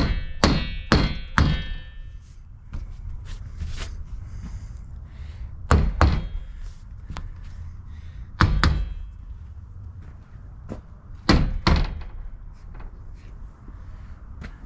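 A short-handled sledgehammer striking the metal frame of a solar panel to knock it into place. Four quick blows come first, the early ones with a short metallic ring, then three more pairs of blows a few seconds apart.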